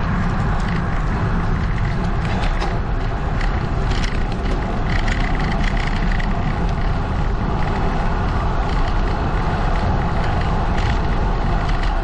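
Steady wind noise buffeting a GoPro microphone on a moving road bicycle, with a heavy low rumble.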